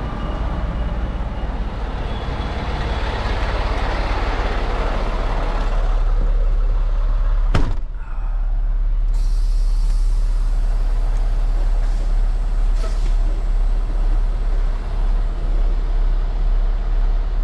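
Semi-truck diesel engine idling with a steady low rumble. About seven and a half seconds in comes one sharp slam as the cab door shuts, after which the engine sounds muffled from inside the cab.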